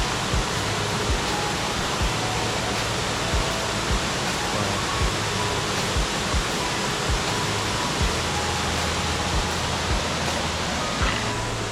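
Steady rushing of a waterfall: an even, unbroken noise with soft low thumps about once a second.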